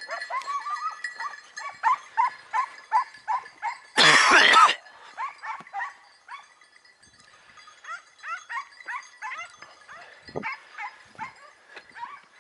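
Hunting hounds yelping in quick succession, giving tongue on the trail of a hare, two or three short high yelps a second. A much louder, longer cry comes about four seconds in.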